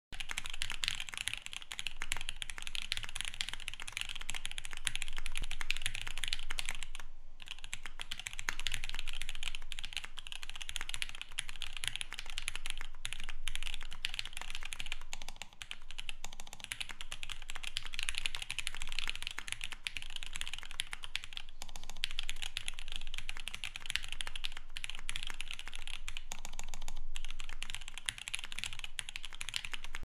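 Continuous fast typing on a Duck Orion v2.5 custom mechanical keyboard with a polycarbonate plate, lubed and filmed TKC Fierce Girls switches and ePBT keycaps: a rapid stream of keystrokes, with two brief breaks about seven and twenty-one seconds in.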